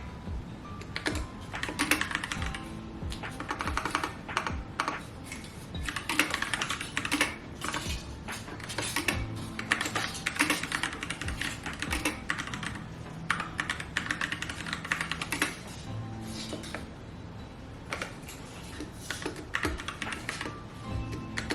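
Continuous, quick typing on a keyboard: dense, uneven key clicks with short pauses, over background music.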